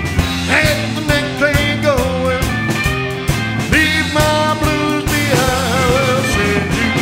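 Rock and roll band playing live with a steady beat: an instrumental break in which an electric guitar lead plays bent, sliding notes over bass and drums.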